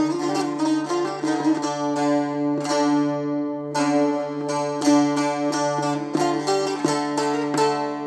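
Bağlama (Turkish long-necked saz) playing a folk melody solo, with quick plucked strokes over a steady low drone from the ringing open strings. The strokes pause briefly for a held note about three seconds in.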